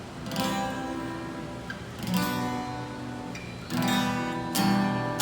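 Acoustic guitar strumming slow, ringing chords, a new chord struck every second or two: the instrumental opening of a song.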